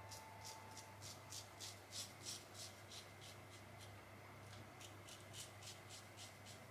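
Short scraping strokes of a Feather Artist Club SS shavette with a Feather Super Professional blade cutting stubble through shaving lather, faint, about three strokes a second in irregular bursts.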